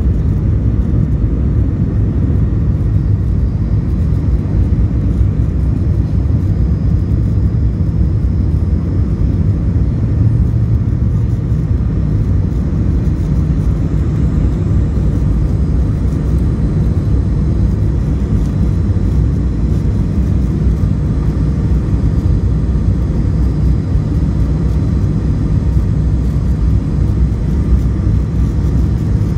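Inside the cabin of a McDonnell Douglas MD-88 airliner in flight, a steady low rumble of its rear-mounted Pratt & Whitney JT8D turbofans and rushing air, with a faint high whine above it.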